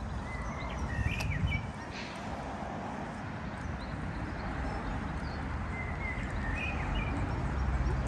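Outdoor ambience: a steady low rumble and hiss, with short high bird chirps about a second in and again around six to seven seconds.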